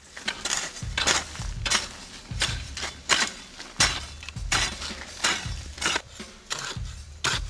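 Hand hoes chopping into hard, dry soil, a sharp scraping strike about every two-thirds of a second.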